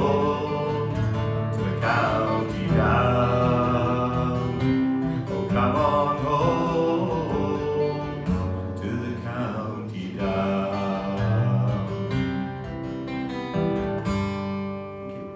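Acoustic guitar strummed through an instrumental ending, each chord struck and left to ring; the playing grows quieter and a last chord fades out near the end.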